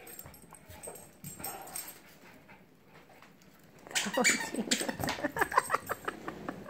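Small dog whining and yipping in rapid short cries from about four seconds in, excited and begging for a new toy. Before that only faint rustling of a paper gift bag.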